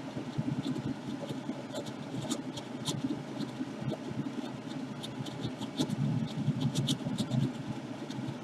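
Hobby paint spray booth's fan running with a steady low hum, with faint scattered clicks over it.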